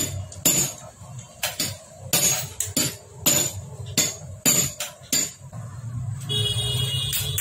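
Metal tools and parts clinking and knocking against a motorcycle engine crankcase during assembly, about a dozen sharp knocks roughly half a second apart. A steady hum with a high ringing tone comes in for the last second or so.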